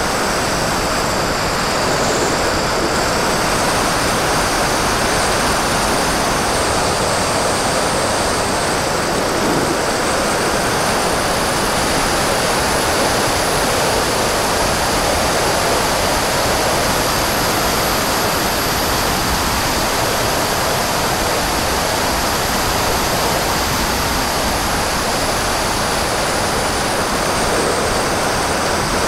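Steady rush of airflow over an onboard Mobius camera on an HK BFG glider in flight, with a thin high whine from the electric motor that rises in pitch about ten seconds in and falls back near the end.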